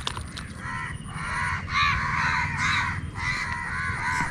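An animal calling over and over in a quick run, several short rising-and-falling calls a second.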